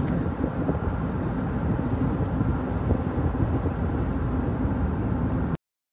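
Steady road and engine noise of a moving vehicle travelling along a highway, with no clear separate events, cutting off suddenly near the end.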